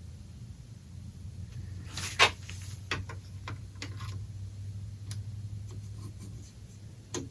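1935 Sentinel 5700B tube radio coming up slowly on a Variac: a low steady hum with scattered clicks and crackles, the loudest click about two seconds in, with no station yet. The hum fades near the end.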